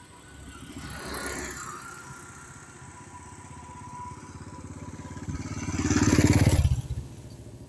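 Motorcycle engine passing close by on a paved road, growing loud about six seconds in and fading quickly as it goes past. A quieter swell of passing traffic comes about a second in.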